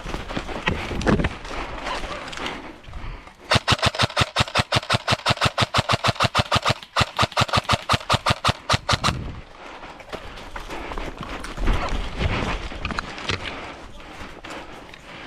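Airsoft replica firing a steady string of rapid shots, about seven a second, for nearly six seconds starting a few seconds in, with rustling movement before and after.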